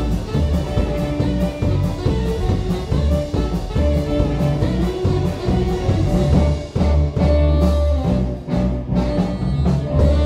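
Live band music from electric guitars, saxophone and drum kit playing loudly together, with steady drum hits and a few brief breaks in the second half as the song nears its end.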